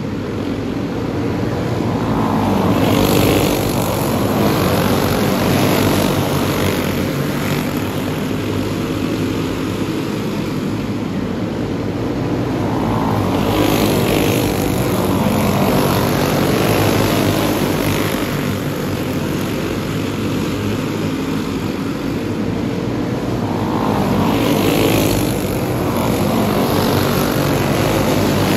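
A pack of racing karts with single-cylinder four-stroke clone engines running at race speed on a dirt oval: a dense drone of many engines that swells three times, about eleven seconds apart, as the pack comes past close by on each lap.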